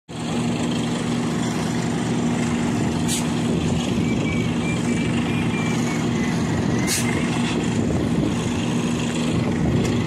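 An engine running steadily at a constant speed, with two brief hisses about three and seven seconds in.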